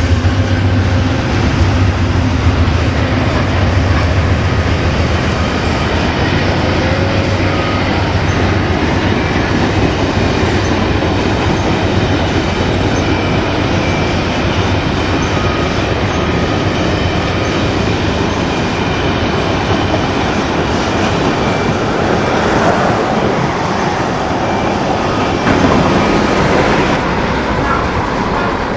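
A train rolling past, with a loud, steady noise of wheels on rail throughout.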